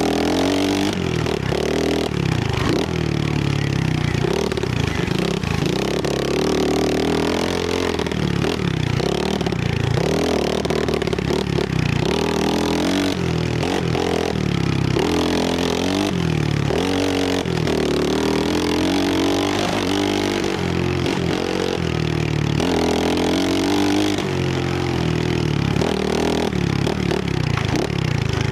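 Trailmaster 125cc pit bike's small single-cylinder four-stroke engine revving up and falling back over and over as the bike is ridden hard along a trail, with some clatter from the bike over rough ground.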